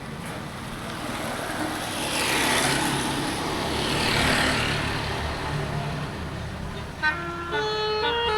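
Bus traffic rumbling and hissing past, swelling twice. About seven seconds in, a bus's multi-tone 'telolet' basuri horn starts playing a tune in stepped notes.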